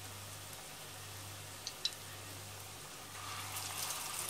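Zucchini fritters frying in hot oil in a stainless steel pot: a faint steady sizzle over a low hum, with two small clicks just before the middle. About three seconds in the sizzle grows louder and crackly as another fritter goes into the oil.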